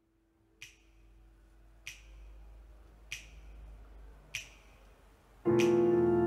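Finger snaps keeping a slow, even beat, one about every second and a quarter, then a piano chord struck about five and a half seconds in and held, with the snaps going on over it.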